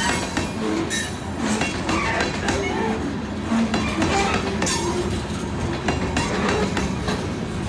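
Loaded rock hopper cars of a freight train rolling past over a grade crossing: a steady rumble with sharp wheel clacks over the rail joints and short, scattered squeaks and squeals from the wheels.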